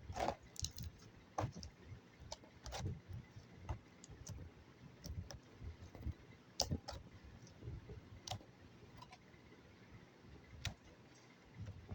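Slime being pressed and worked by hand, giving scattered, irregular clicks and little pops, with soft low thuds between them.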